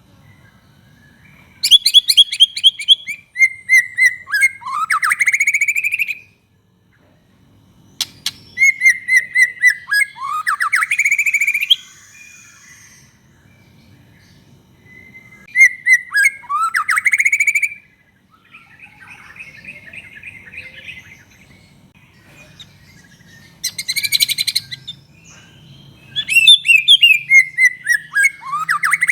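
White-rumped shama (murai batu) singing in loud, varied phrases with pauses between. Each phrase is a quick run of sharp notes ending in sweeping whistles that dive and rise.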